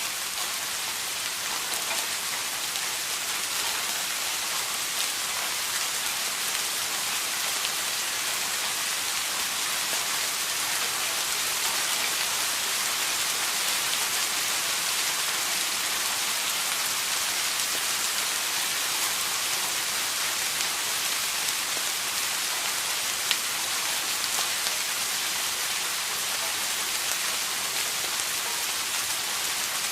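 Steady rain falling, a dense even hiss of many drops pattering on a surface.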